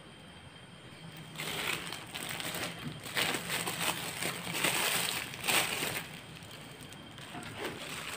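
Thin plastic bag crinkling and rustling in the hands as a wet, grated mash is scooped and squeezed into it. It starts about a second in, comes in uneven bursts and dies down near the end.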